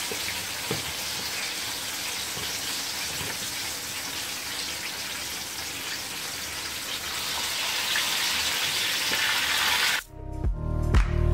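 Horse mackerel sizzling in hot oil in a frying pan, a steady sizzle with a few light clicks, growing louder about seven seconds in as another fish goes into the oil. About ten seconds in the sizzle cuts off and pop music starts.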